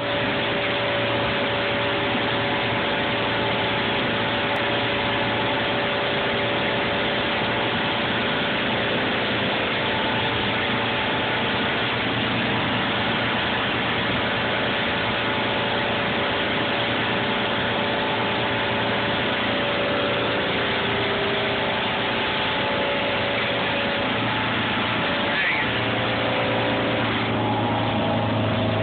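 Outboard motor running steadily at high speed, with wind and rushing water hiss from a boat moving fast over the bay. The engine's steady tone shifts and grows a little stronger near the end.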